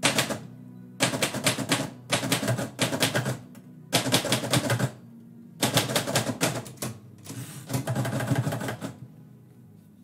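Manual typewriter being typed on in quick bursts of keystrokes with short pauses between them, and the carriage pushed back for a new line.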